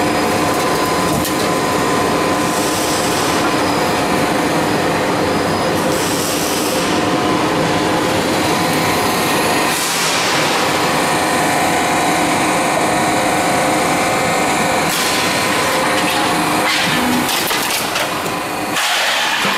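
Sheet-metal roll forming line running: a steady mechanical hum with several steady tones from the motor and forming rollers as steel sheet is formed into double cap ridge profile. A few knocks come near the end.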